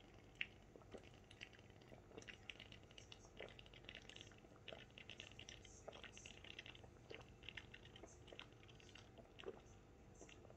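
Faint gulping and swallowing as a man downs a can of stout in one go: soft, irregular mouth and throat clicks, a few a second.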